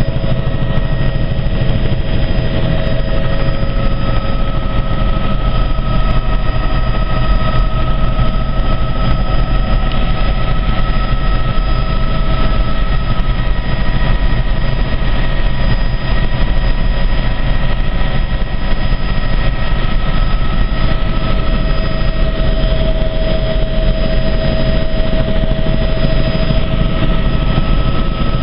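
Helicopter engine and rotor running steadily in flight, heard from inside the cabin: a loud, even drone with several held tones over a low pulsing.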